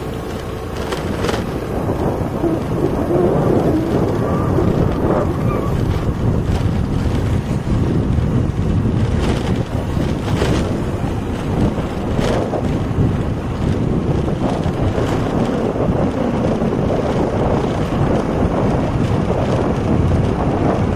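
Heavy wind buffeting on a phone's microphone while riding a two-wheeler along a road, with the rumble of the ride underneath.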